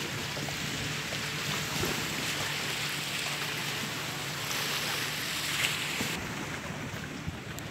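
Steady lakeside ambience: small waves lapping on a stony shore and wind on the microphone, with a faint low hum underneath. The hiss eases about six seconds in.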